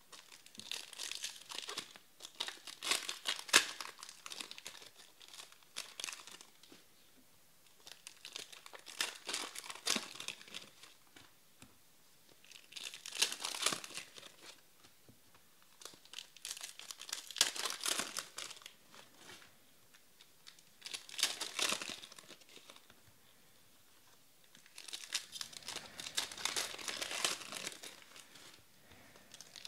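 Foil wrappers of Panini Elite Extra Edition trading-card packs crinkling and tearing as packs are ripped open, in about six bursts of a few seconds each with quieter pauses between.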